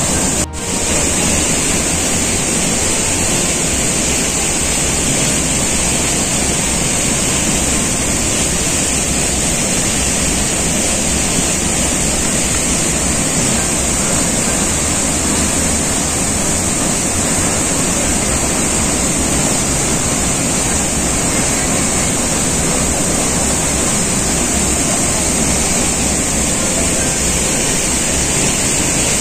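Waterfall in monsoon flood: a heavy torrent pouring over rock into a narrow gorge, making a loud, steady rush of water. The rush dips briefly about half a second in.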